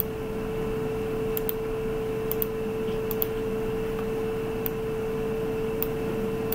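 A steady mid-pitched electrical hum over a hiss, with about five faint, sharp clicks of a computer mouse spread through it.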